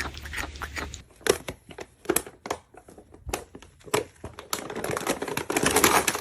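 Irregular clicking and crinkling noises, thickening into a dense, continuous rustle near the end.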